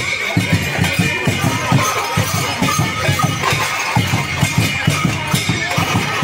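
Festival procession music: a drum beating a quick, steady rhythm of about four to five strokes a second, with metallic cymbal clashing over it.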